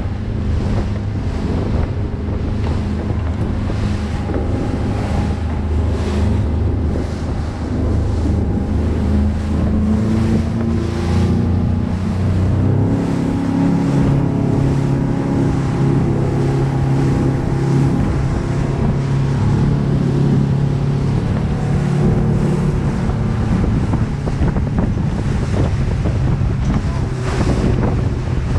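Motorboat running at speed: a steady engine drone under wind buffeting the microphone and the hull rushing through choppy water. The engine note shifts higher about twelve seconds in.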